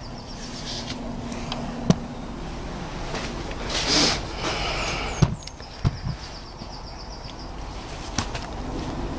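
Hands working under a car, pulling the ABS wheel-speed sensor cable out through the front wheel arch: a few sharp knocks and a rushing scrape about four seconds in, the loudest part. A rapid high chirping comes twice, near the start and again past the middle.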